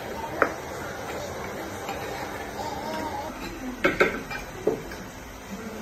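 A few sharp knocks and clinks of a wooden pestle and a metal spoon in a wooden mortar as a mash is pounded and scraped; one knock comes early and the loudest come close together about four seconds in.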